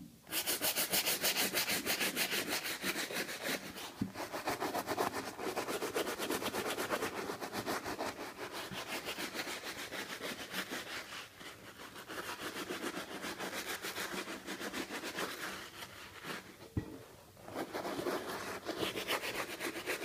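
Brush scrubbing a sneaker wet with shoe-cleaning solution, in quick, even back-and-forth strokes, with brief pauses about eleven and seventeen seconds in.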